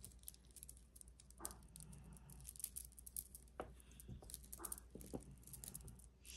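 Faint, scattered small clicks and light rustling of jewelry being handled.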